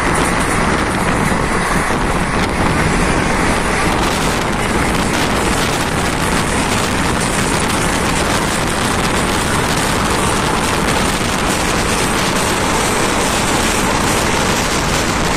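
Train running steadily at speed, heard from on board by an open window or door: a continuous rush of wheel and track noise mixed with wind buffeting the microphone.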